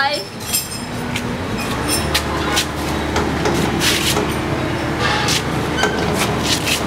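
Steady low hum of a vehicle engine that sets in about two seconds in, with scattered sharp knocks and clatters over it.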